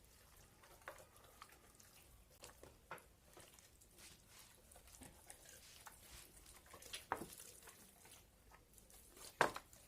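Hands rubbing and patting a wet yogurt-and-spice marinade into a raw chicken: soft squelching with scattered light taps, and two louder knocks in the second half.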